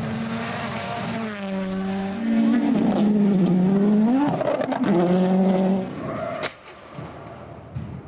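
Rally car engine at full throttle, its pitch climbing and dropping through gear changes, loudest through the middle, then falling away suddenly about six seconds in. A single sharp crack follows shortly after.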